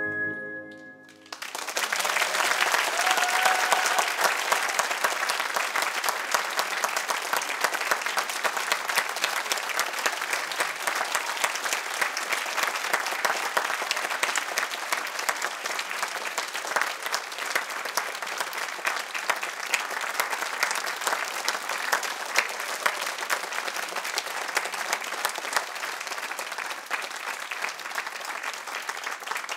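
The ballet music ends on a held chord about a second in, and a theatre audience then applauds steadily.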